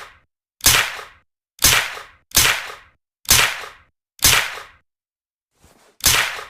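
Suppressed Uzi submachine gun shots: single sharp cracks, each dying away quickly, about one a second, six in all, with a short pause and a faint shot before the last.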